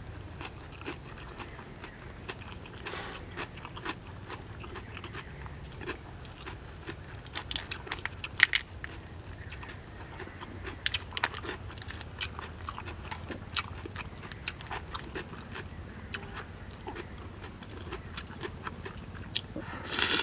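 Close-up eating sounds: grilled shrimp shells cracking and being peeled apart by hand, mixed with chewing and crunching. There is a run of sharp cracks throughout, with louder clusters about eight and about eleven seconds in.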